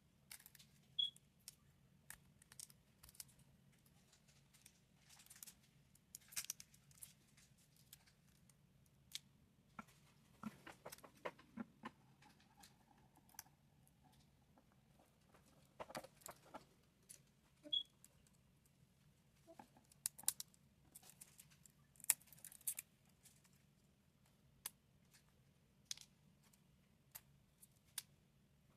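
Irregular light clicks, taps and short scrapes of small hand tools working on a phone's back glass, over a faint low hum.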